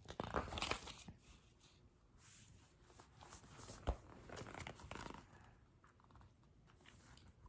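Faint rustling and crinkling of paper as the pages of a picture book are handled and turned, with a soft knock about four seconds in.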